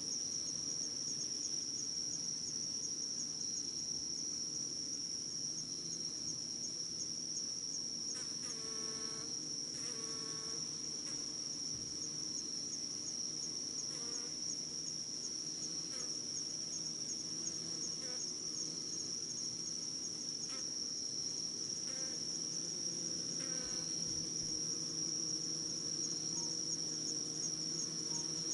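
A steady, high-pitched insect trill with a fast even pulse runs throughout, over a low buzzing hum from a ball of Japanese honeybees clustered on a hornet at the hive entrance. Short louder buzzes come twice about a third of the way in and again near the end.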